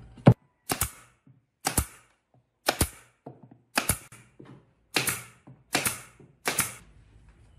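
A series of about eight sharp knocks, roughly one a second, some in quick pairs, each with a short ringing tail.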